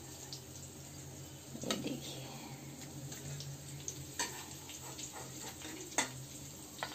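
Slotted metal spoon knocking against the kadhai a few times, about four sharp clicks, as fried stuffed bitter gourds are lifted out of the oil, over a faint sizzle of mustard oil frying on a low flame.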